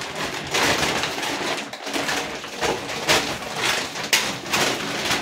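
Large plastic grocery sack rustling and crinkling in irregular surges as it is lifted and opened by hand.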